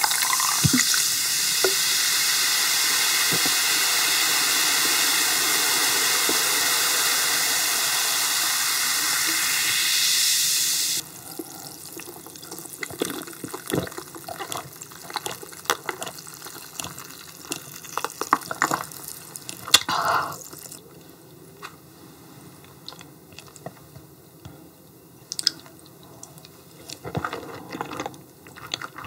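Cola being poured into a glass and fizzing, a loud steady hiss that stops suddenly about eleven seconds in. After that come quieter scattered clicks and chewing as eating begins.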